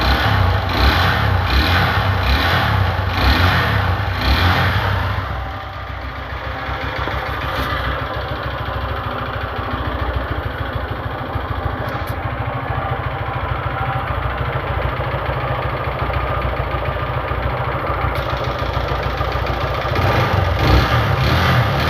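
Honda CG 150 Fan motorcycle's single-cylinder engine running with a loud mechanical noise from inside the engine. It swells and falls about twice a second for the first five seconds, runs steadier and a little quieter through the middle, and gets louder again near the end. The owner links the noise to engine damage from oil changes not done properly.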